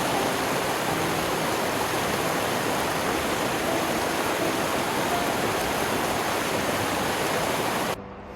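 A waterfall rushing steadily, a dense even roar of water that cuts off abruptly about eight seconds in.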